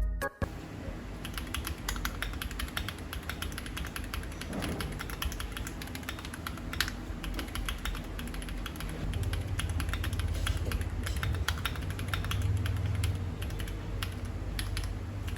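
Continuous typing on an Akko ACR Pro68, a gasket-mounted acrylic 68% mechanical keyboard with Akko CS Crystal linear switches: a dense, uneven stream of keystroke clacks.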